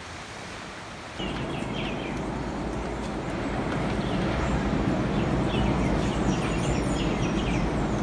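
Birds chirping in scattered short calls over a steady low outdoor rumble. The rumble comes in suddenly about a second in, after a fainter hiss.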